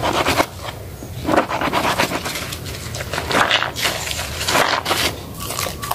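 Hands squeezing and kneading a water-soaked soap bar and a sponge in thick lather, giving irregular wet squelches with crackling foam, about once or twice a second.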